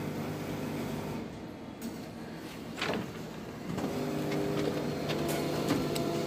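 Toshiba e-Studio 2010AC colour copier running as it prints an adjustment page: a steady mechanical hum with a click about three seconds in. The hum grows louder about four seconds in as the sheet is fed out.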